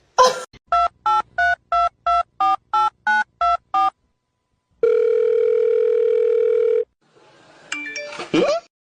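Telephone keypad tones as a number of about ten digits is dialed, a short two-tone beep for each key. After a pause comes one steady ringback tone lasting about two seconds, the line ringing at the far end, then a brief jumble of sounds near the end.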